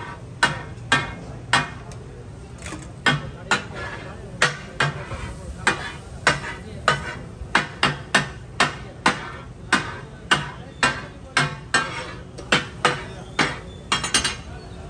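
Steel spatulas clacking on a large iron tawa in katakat-style chopping: sharp, ringing metal strikes, about two a second in an uneven rhythm, over a steady background noise.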